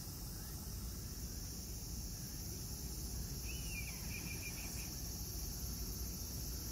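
Steady high-pitched chorus of insects in the background, with one short warbling chirp about halfway through and a low rumble underneath.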